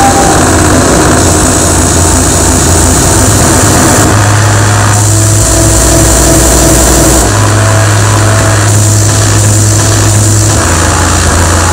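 Loud experimental electronic noise music played live through a PA: a dense, distorted drone over hiss, with a heavy bass tone that steps to a new pitch every second or two and a thin held tone coming and going above it.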